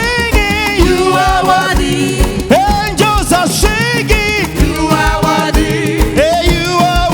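Live church praise music: singing voices over a band with a steady, regular beat of drums and bass.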